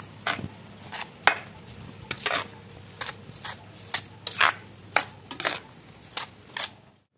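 A metal spoon scraping and clinking against a metal pot as it stirs whole Ceylon gooseberries through freshly added granulated sugar, in irregular strokes about two to three a second. The stirring stops suddenly near the end.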